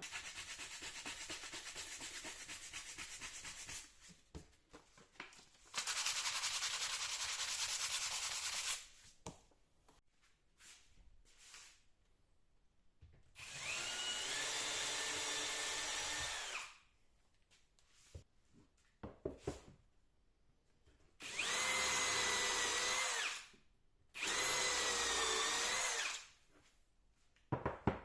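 An electric power tool runs in five bursts of two to four seconds each. In the later bursts the motor whines, and its pitch rises and wavers under load. A few clicks fall between the bursts.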